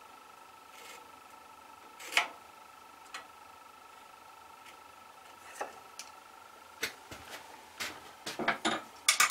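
Marking knife and wooden workpieces handled on a bandsaw table: a few scattered light knocks and scrapes, coming thicker near the end as the pieces are set down, over a faint steady high hum.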